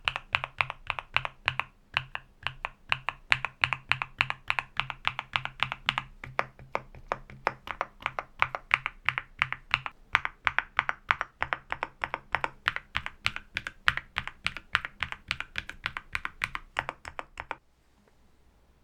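Fast continuous typing on a NuPhy Halo65 V2 65% wireless mechanical keyboard: a dense run of key clicks and thocks. It stops about a second before the end.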